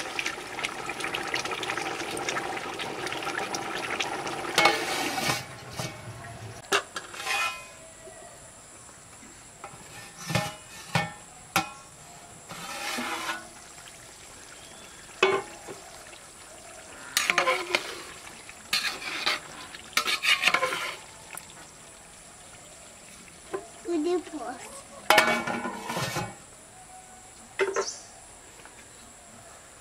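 Metal slotted spatula stirring rice boiling in a large aluminium pot, scraping and ringing against the pot for about the first five seconds. After that come scattered short clinks and knocks of utensils and the pot's lid.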